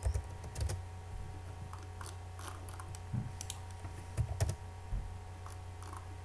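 Typing on a computer keyboard: scattered keystrokes and clicks in small irregular clusters over a steady low hum.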